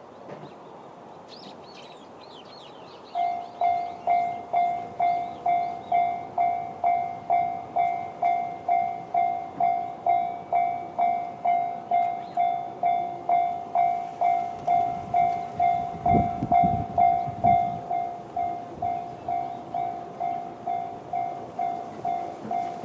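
Japanese railway level-crossing alarm in the JR standard electronic tone starts about three seconds in and rings a steady ding-ding beat, a little under two strokes a second, signalling an approaching train. A few bird chirps come before it, and low rumbles rise in the second half.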